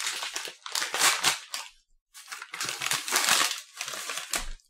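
Crinkling of Kit Kat plastic snack packaging as it is rustled and opened by hand, in bursts with a short pause about two seconds in.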